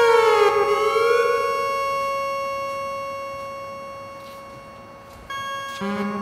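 Electronic synthesizer sound through speakers: a steady held drone tone, with several sweeping pitch glides at the start that fade away over a few seconds. New gliding tones come in near the end.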